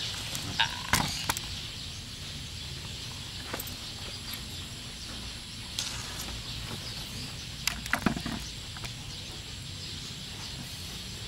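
Scattered clicks and knocks from a handheld camera and clothing being handled, with a small cluster about eight seconds in. Beneath them runs a steady outdoor background hiss of insects.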